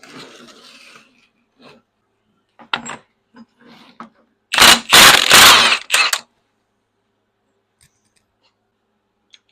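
A few light knocks and clicks of parts being handled. About halfway through comes a loud rushing hiss lasting about a second and a half, in two or three pulses.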